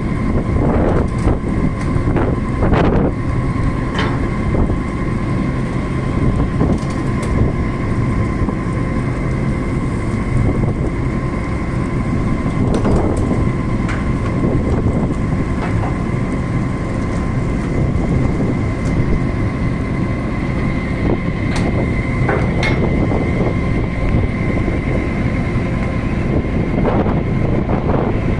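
Steady heavy mechanical rumble with a constant whine, broken by a few faint clicks.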